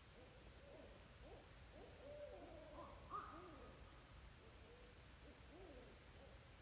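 Several owls calling over one another in a faint recording: wild, swooping hoots and wails that rise and fall, with one higher call about three seconds in.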